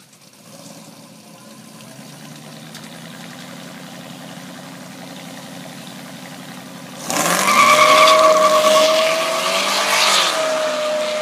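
Ford Lightning and supercharged Chevy Avalanche pickup engines running steadily on the line, then about seven seconds in both trucks launch hard together: a sudden loud burst of engine noise rising in pitch as they accelerate away, with a steady high whine over it.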